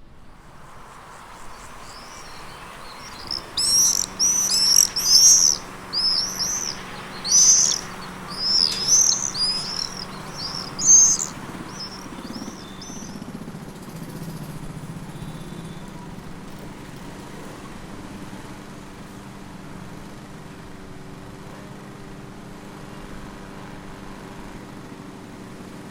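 Common swifts screaming: a run of shrill, high calls that starts a few seconds in and dies away about halfway through. Under it runs a steady low background hum.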